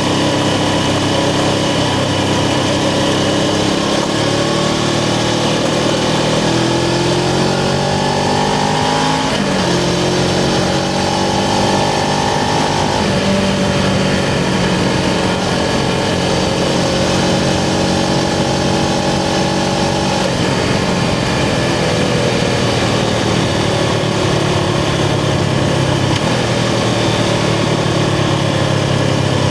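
Suzuki GS500's air-cooled parallel-twin engine heard from the saddle while riding. It pulls up through the revs with two shifts, one about 9 seconds in and one about 13 seconds in, then holds a steady pitch. From about 20 seconds it eases off as the bike slows.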